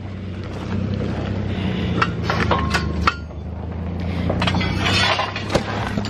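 Scrap metal engine parts (old pistons and piston rings) clinking and clattering in a few irregular bursts as they are rummaged through, over a steady low hum.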